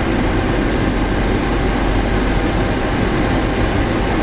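Steady rushing noise of airflow and engines on the flight deck of a Boeing 737NG flying its approach.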